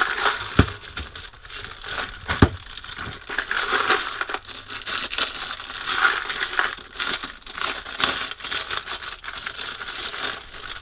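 Thin clear plastic bag crinkling and crackling around a plastic case of rivets as it is handled and turned over, with two sharp knocks in the first few seconds.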